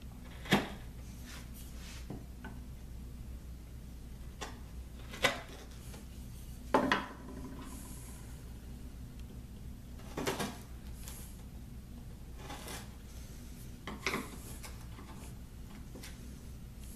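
Bench chisel paring wood inside a routed mortise in a board, squaring off the slot's rounded end. A handful of short, sharp cuts and clicks come a few seconds apart over a low steady hum.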